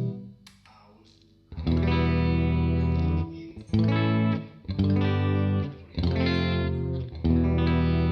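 PRS McCarty 594 electric guitar, a humbucker-equipped solid-body, played through an amp. A ringing chord is cut off right at the start. After about a second and a half of near silence, a series of about five chords is struck one after another, each left to ring.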